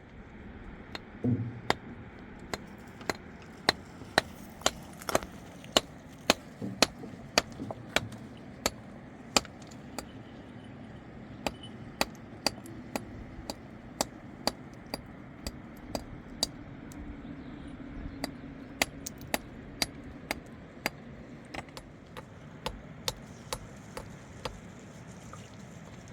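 A hand tool striking over and over as building work goes on: sharp clinking taps at an irregular pace of about one to two a second, with a short pause about ten seconds in.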